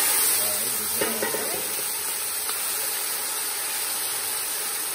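Food sizzling in hot oil in a cooking pot: a steady, loud hiss that eases slowly.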